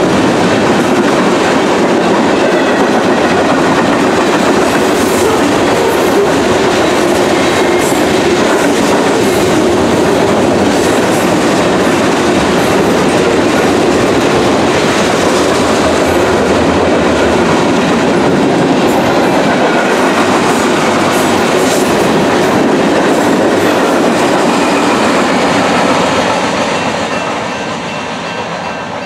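A freight train of boxcars and covered hoppers rolls past with a steady rumble of steel wheels on rail, and scattered metallic clicks. Near the end the sound falls away as the last cars move off.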